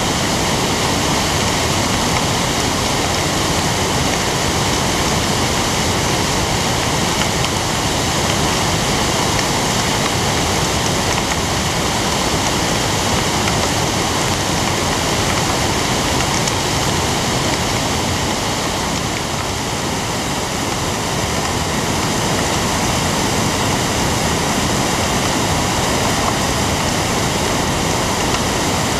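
A creek in flood, its swollen whitewater rushing past in a loud, steady, unbroken rush.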